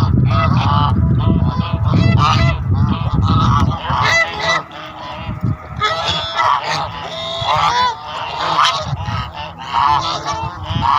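A flock of domestic geese honking, many short calls overlapping. A low rumbling noise lies beneath the calls for the first four seconds or so, then fades.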